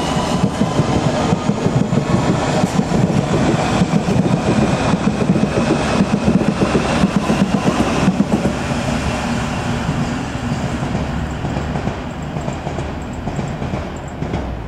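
London Underground S7 stock train pulling out, its wheels clattering over rail joints in a quick rhythm, with a faint rising motor whine at first. The clatter grows quieter in the second half.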